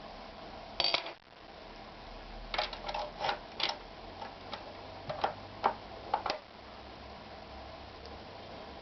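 Irregular mechanical clicks and knocks from a Victoria 739 sewing machine being handled, with a louder clatter about a second in and two clusters of clicks later, over a low steady hum.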